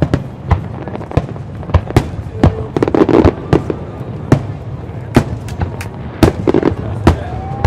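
Aerial fireworks display: a string of sharp bangs from bursting shells, irregularly spaced at about two a second.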